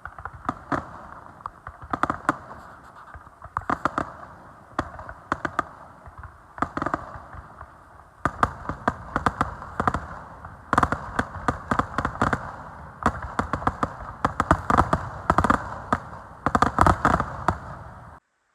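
Fireworks display: shells bursting in rapid volleys of sharp bangs over continuous crackling, the clusters growing denser and louder through the second half, then cutting off abruptly near the end.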